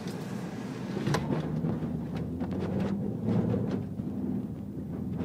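Vehicle engine running steadily, heard from inside the cabin while driving over a bumpy track, with a few sharp knocks and rattles from the ride, the clearest about a second in.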